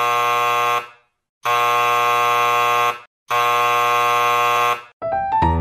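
Electric buzzer sounding three long, steady buzzes of about a second and a half each, with short gaps between them, like the three signals that tell a theatre audience the show is about to begin. Music starts up near the end.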